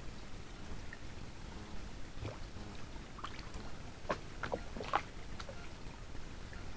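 Eurasian beaver at the water's edge making about half a dozen short, sharp sounds around the middle, the loudest two near the end of that run, over a faint steady background hiss.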